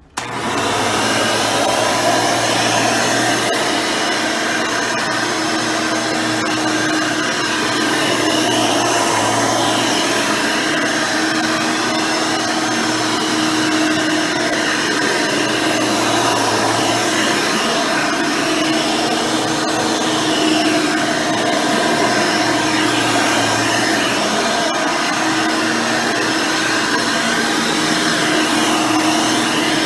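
Hoover Elite 600 upright vacuum cleaner, fitted with a 7-amp motor and a 20-blade fan impeller, switching on and then running steadily while vacuuming carpet with its red-bristle brush roll.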